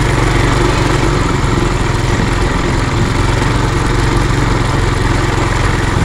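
Trail Master MB200 mini bike's small single-cylinder four-stroke engine running steadily under way, heard from a camera mounted on the bike, with the steady noise of riding over it.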